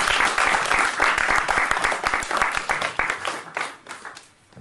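Audience applauding, a dense patter of many hands clapping that thins and dies away near the end.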